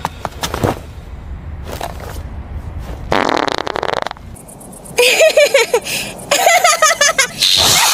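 Cartoon soundtrack: a few soft clicks over a low rumble, then a raspy buzzing burst of about a second. After it comes a wordless, warbling voice that rises and falls in pitch.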